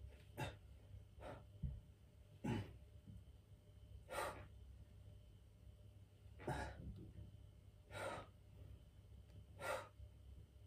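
A man's hard breathing under exertion: about seven short, sharp exhales, one every one to two seconds, paced with the reps of a seated leg-raise core exercise.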